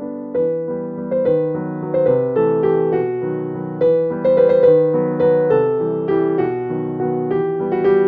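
Background music: a gentle piano tune, a new note struck about twice a second.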